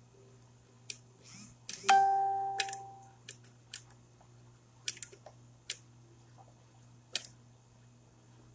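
Manual caulk gun clicking and knocking as its trigger is squeezed and released, pushing silicone out of the tube, with about nine sharp clicks spread through. About two seconds in comes one clear metallic ring, the loudest sound, which fades over about a second.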